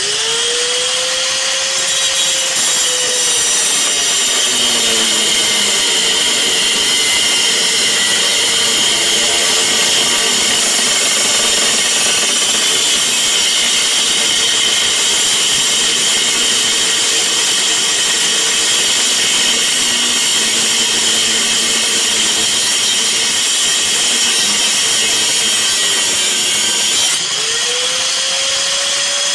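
Angle grinder with a cut-off disc spinning up and cutting through a seized bolt in a car's rear lower control arm: a loud, steady, high grinding. Its motor pitch rises at the start and sags as the disc bites into the metal. Near the end it eases off briefly and spins up again.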